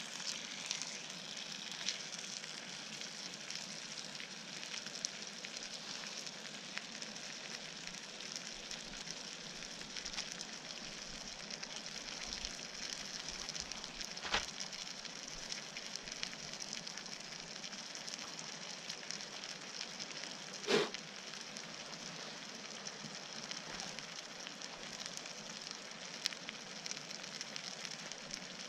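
Pork sizzling and crackling steadily in a frying pan on a gas camping stove, with two sharp knocks, about 14 and 21 seconds in.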